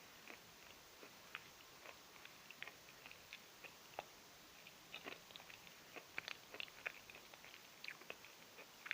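A person chewing chalk: faint, irregular dry crunches and clicks, growing busier after about five seconds.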